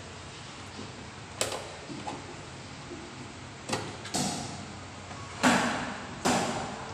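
Kitchen knife chopping chicken feet on a tabletop: about five sharp knocks at uneven intervals, the last two the loudest.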